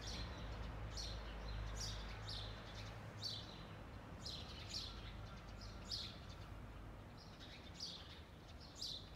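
A small bird chirping over and over, short high notes about once a second, over a faint low background rumble that fades after about three seconds.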